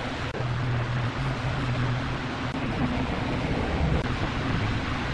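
Electric fan running: a steady rush of air over a low motor hum.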